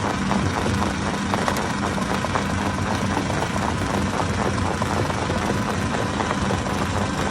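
Hammer-type stone crusher running steadily: a heavy, even machine hum with a constant clatter of small irregular knocks.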